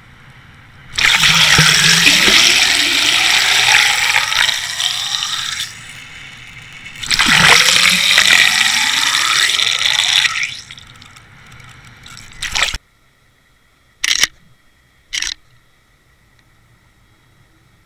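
Water rushing and bubbling over an underwater camera housing towed on a trolling line: two loud surges of several seconds each, with falling tones sweeping through them. A few short knocks follow near the end.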